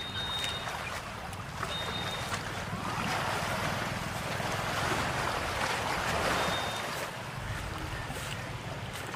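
Wind buffeting the microphone over the broad wash of sea surf, which swells for a few seconds in the middle and eases off again.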